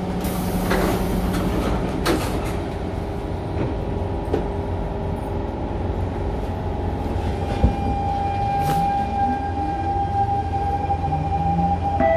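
SMRT C651 train: a hiss of air as the doors close, a steady low rumble, then about eight seconds in the traction motors start a whine that climbs in pitch in steps as the train pulls away.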